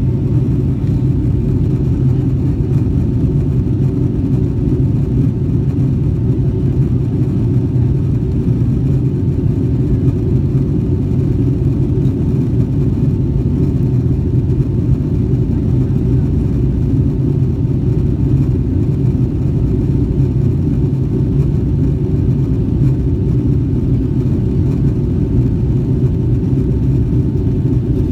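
Boeing 757-200 cabin noise in the climb: a steady low rumble of the engines and airflow, with a faint steady hum above it.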